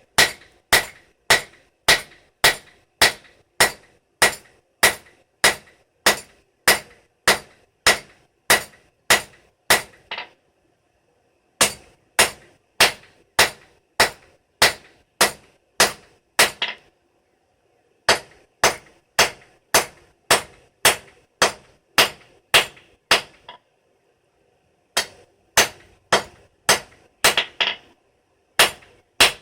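Blacksmith's hammer striking hot steel on an anvil in steady, ringing blows about two a second, in four runs broken by brief pauses.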